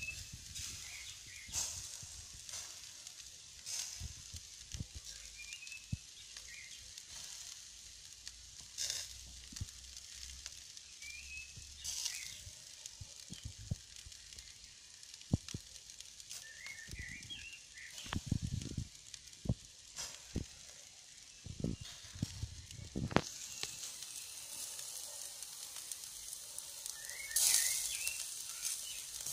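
Meat skewers sizzling in a wire grill basket over hot charcoal embers, a steady hiss with crackles and pops at irregular moments. The hiss grows stronger over the last third.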